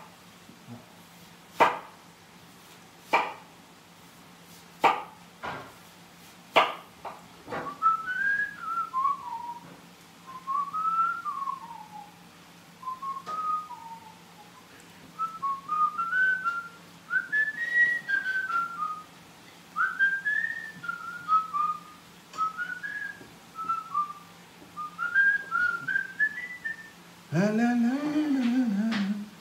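A man whistling a wandering tune, after a few sharp knocks of a chef's knife slicing red onion on a wooden cutting board. Near the end the whistling gives way to a lower voiced sound.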